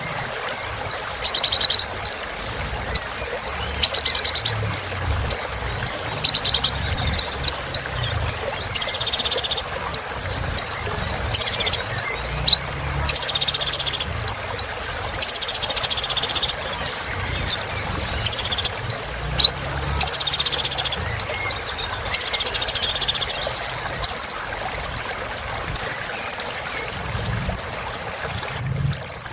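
Kolibri ninja (a small sunbird) singing continuously and energetically, in the fast 'gacor' style. Its song is a long run of quick, high, sharp chirps broken every few seconds by a buzzy trill about a second long.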